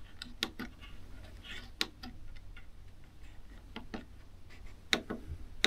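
Bambu Lab P1S control-panel buttons clicking as they are pressed to navigate the printer's menu: about ten short, sharp clicks at irregular intervals, some in quick pairs, over a faint steady low hum.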